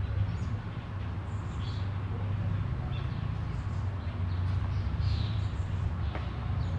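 Birds chirping faintly outdoors over a steady low rumble.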